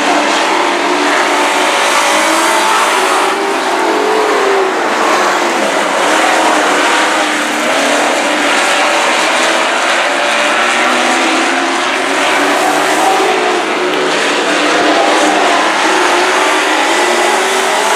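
Several dirt-track race trucks running hard around the oval, their overlapping engine notes rising and falling as they accelerate and lift through the turns.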